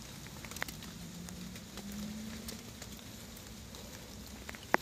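Footsteps and light crackling on a hiking trail, scattered small clicks with a single sharp snap or click near the end.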